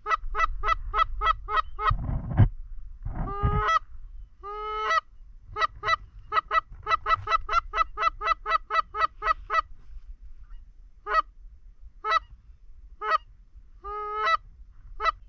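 Canada goose honks and clucks: quick, evenly spaced runs of short clucks at about five a second near the start and again in the middle, with longer honks that rise and break in pitch between them and single honks spaced out near the end. A brief low rush sounds about two seconds in.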